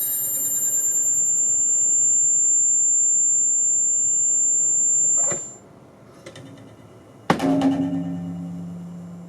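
Electronic noise from an audio mixer: a loud, steady, high-pitched whine made of several tones together, lasting about five seconds before cutting off. About two seconds later a sharp click sets off a low ringing hum that slowly dies away.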